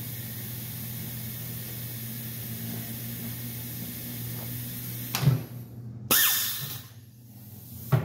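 Tire changer running with a steady low hum while a large low-profile tire is worked onto a 32-inch rim. A sharp knock about five seconds in, then a sudden short hiss of compressed air that fades within a second, and another knock near the end.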